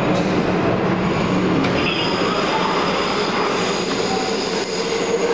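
Seoul Metro Line 2 subway train standing at the platform while passengers board: a steady, fairly loud rush of train and station noise, with a thin high whine joining in about two seconds in.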